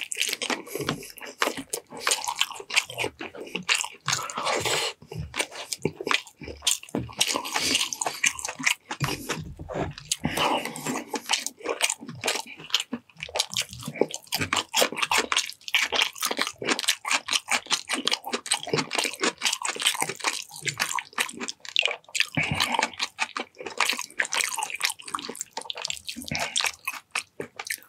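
Close-miked eating of chicken adobo in coconut milk with rice: wet chewing, with many quick mouth clicks and some crunchy bites.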